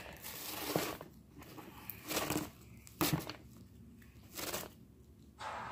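Pink slime being kneaded and pulled by hand, giving crackling, squishing noises in several short bursts.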